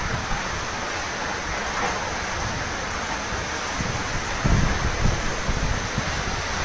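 Typhoon wind and heavy rain: a steady rushing noise, with strong gusts buffeting the microphone about four and a half seconds in.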